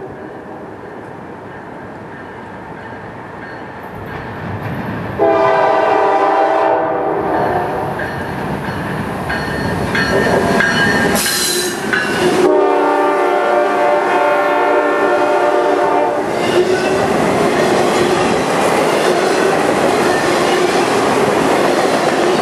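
Diesel freight locomotive horn sounding long blasts as the train approaches and passes, the first faint and distant, then two loud ones about 5 and 12 seconds in. Once the horn stops, the steady rumble and clatter of autorack cars rolling by takes over.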